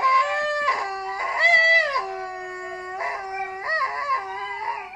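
A dog howling, played back through a phone's small speaker: several long howls in a row that rise, hold and fall in pitch.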